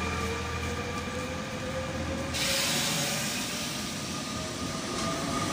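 Double-deck electric commuter train rolling past along the platform, its motor whine slowly rising in pitch as it gathers speed over a rumble of wheels. A broad hiss sets in abruptly about two and a half seconds in.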